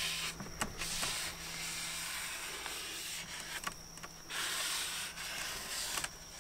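A cloth rag rubbing and wiping over the aluminium mating surface of a supercharger's lower intake, cleaning it with WD-40. It comes as stretches of scratchy rubbing, the strongest a little past halfway.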